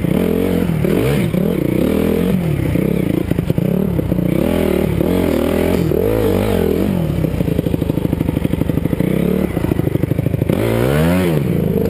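Dirt bike engine being ridden, revving up and falling back again and again as the rider throttles through the track. Partway through it runs steadier with a fast even beat, then revs up and down once more near the end.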